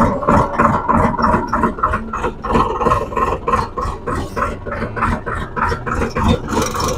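Sonalika tractor's diesel engine running as the tractor pulls away, with a rapid, even beat.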